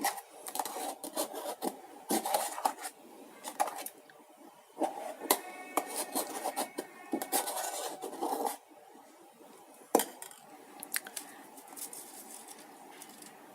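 A utensil scraping and clinking against the inside of a steel electric kettle as thickening milk is stirred, in irregular strokes for about eight seconds. A single sharp knock follows about ten seconds in.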